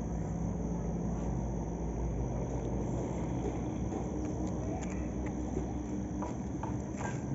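Steady low rumble with an engine-like hum in the background. In the second half, a few light footsteps land on the pavement close by.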